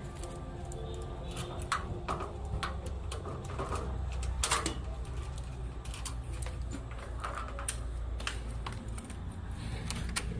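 Keys jingling and sharp metal clicks as a key is worked in the lock of a metal security grille and then a door lock, irregular clicks over a steady low hum.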